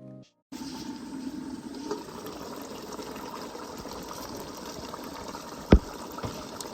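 Pot of ukazi soup with egusi base simmering, a steady bubbling hiss, with one sharp knock near the end.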